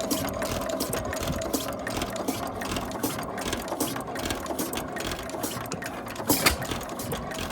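1912 Gardner type 1AF stationary engine running steadily with a fast, even clatter, and one louder knock about six seconds in.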